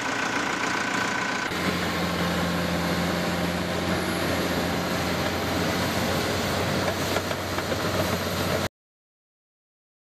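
Diesel engine of heavy earthmoving equipment running steadily. About a second and a half in, the sound changes abruptly to a deeper steady hum, and it cuts off suddenly near the end.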